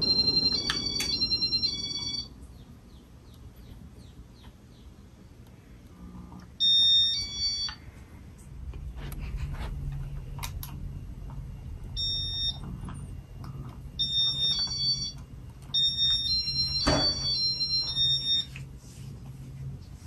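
Groups of high electronic beeps, each stepping between two or three pitches, sound five times. They are the loudest thing. Under them a ceiling fan's low noise drops away about two seconds in, and a steady low motor hum comes back about halfway through.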